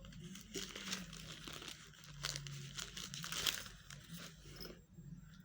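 Thin paper pages rustling and crinkling in quick irregular crackles as a Bible is leafed through to find a passage. The rustling stops a little before the end.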